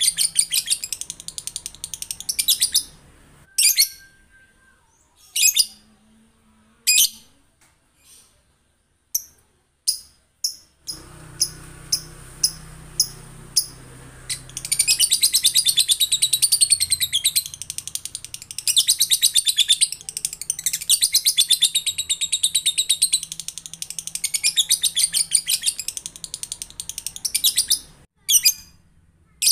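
Male lovebird calling: single sharp, high chirps at first, then long bouts of fast chattering trill, the drawn-out 'ngekek' song, each run lasting several seconds.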